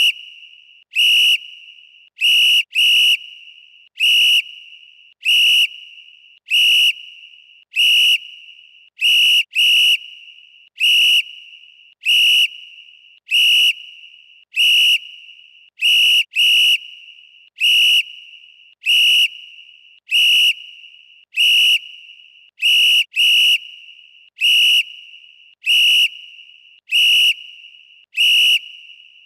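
Referee whistle blown in short, sharp, high-pitched blasts, about one a second with some coming in quick pairs, each trailing off in a brief echo.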